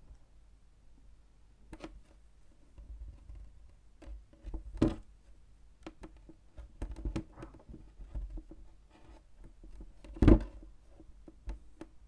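Fruit being moved around and set down on a wooden tabletop: scattered soft knocks and rubbing, with two louder thuds, one about five seconds in and one near ten seconds in.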